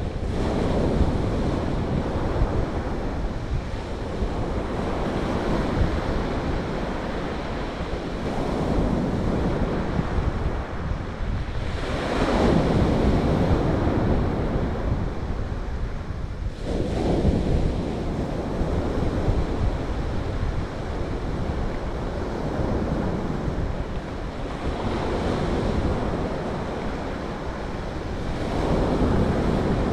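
Surf breaking on a pebble beach, with waves surging in and washing back in slow swells; the loudest surge comes about halfway through. Wind buffets the microphone.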